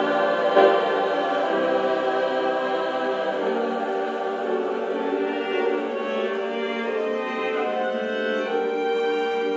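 Mixed high school choir singing slow, sustained chords with violin and cello accompaniment, settling onto a long held chord near the end.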